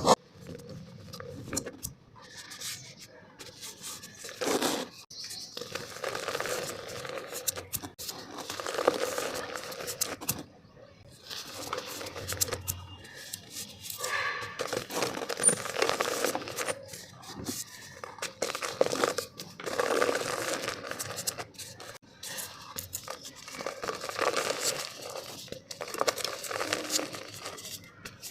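Soft, dusty dried black mud being crumbled in a clay pot: irregular gritty crunching and scraping in uneven bursts.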